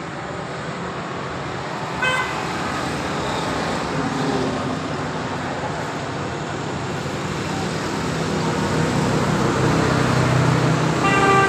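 Passing road traffic: a steady rumble of vehicles that grows louder in the second half. A brief horn toot comes about two seconds in, and another horn sounds near the end.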